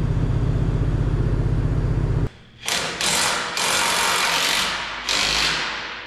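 Komatsu D85E's six-cylinder diesel idling steadily with a fast even beat, now firing on all six cylinders. It cuts off abruptly a little over two seconds in, and several bursts of rushing noise follow.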